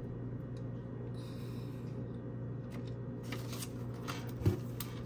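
Folded paper instruction leaflets rustling and being handled, with a few light taps and one soft thump about four and a half seconds in. A steady low hum sits underneath.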